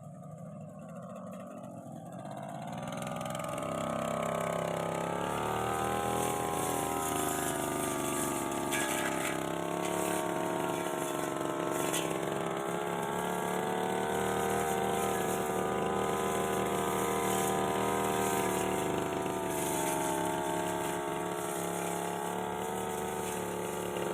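Petrol brush cutter engine revving up a couple of seconds in, then running steadily at high revs with its pitch wavering slightly as the throttle is worked while cutting hedge growth.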